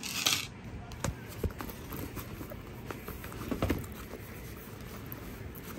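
Handling noises: a brief rustle, then scattered light taps and knocks, with a louder knock about three and a half seconds in.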